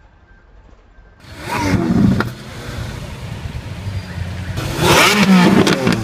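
Lamborghini Aventador LP700-4's V12 engine revved hard twice: a short rev that swells and falls away about a second and a half in, then a longer, louder rev near the end.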